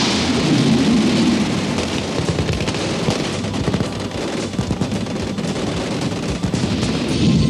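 Several firearms, machine guns among them, shooting at once: a dense run of overlapping shots with no break.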